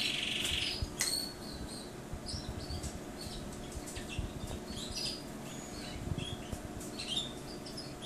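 Canaries chirping: a short buzzy trill right at the start, then scattered short, high chirps and tweets.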